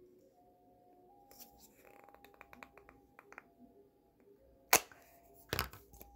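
Hands handling a plastic Play-Doh grill mold and dough: a run of small clicks and taps, then two sharp knocks a little after halfway, the first the loudest.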